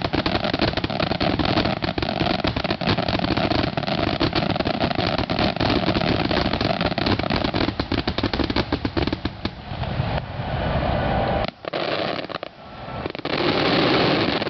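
Fireworks finale barrage: a dense, continuous run of rapid bangs and crackling shells for about ten seconds. It then thins into swelling rushes of noise with a brief sudden dip.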